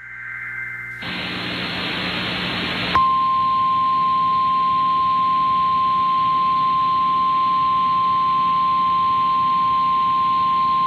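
Emergency Alert System broadcast heard over AM radio. The last of the data-header tones fades out, then comes about two seconds of radio hiss. About three seconds in, a single steady alert tone starts and holds unchanged: the weather-warning attention signal that comes before the spoken flash flood warning.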